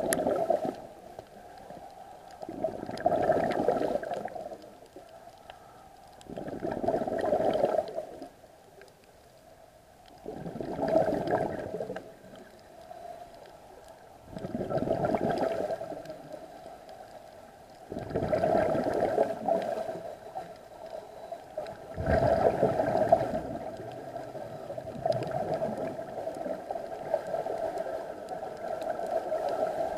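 Diver breathing through a scuba regulator underwater: a gurgling rush of exhaust bubbles with each exhalation, about every four seconds, running together near the end.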